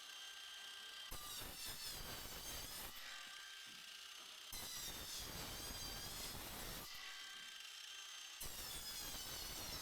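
Ratchet tie-down strap being worked, its pawl clicking faintly, in short stretches that start and stop abruptly.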